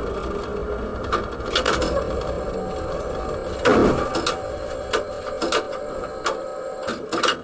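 Tram running along the street, heard inside the driver's cab: a steady hum with clicking and rattling throughout, and a louder knock about four seconds in.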